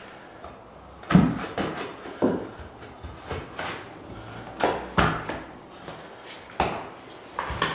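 Sharp knocks at irregular intervals, some in quick pairs, as a carpet stair tool is jammed down to tuck Berber carpet between the tack strip and the edge of the wood floor.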